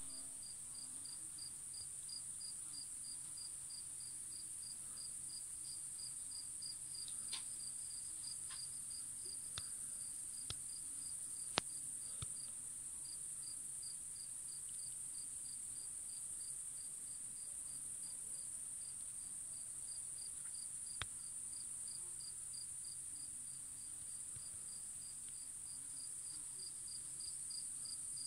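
Crickets: a continuous high-pitched trill with a second insect chirping in a steady, regular pulse over it, and a few faint clicks scattered through.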